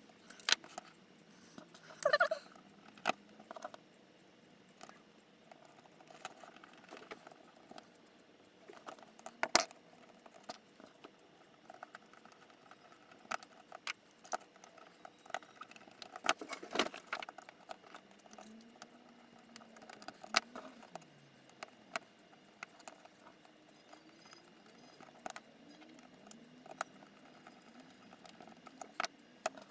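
Scattered small clicks, clinks and taps of aluminium servo brackets, screws and a screwdriver being handled and fitted together, with a few louder knocks.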